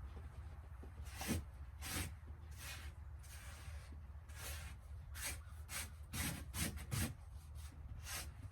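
Footsteps crunching through deep snow, a dozen or so uneven steps, a few crunching harder than the rest, over a steady low rumble.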